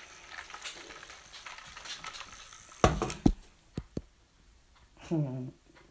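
A cup being handled while a drink of medicine is mixed: a loud clatter of knocks about three seconds in, then two lighter clicks. A brief whine follows near the end.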